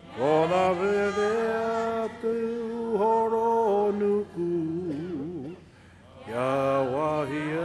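Voices singing a slow, chant-like Māori waiata in unison, with long held notes. About four and a half seconds in, the line drops to a lower, wavering phrase and pauses briefly, then starts again with a rising slide.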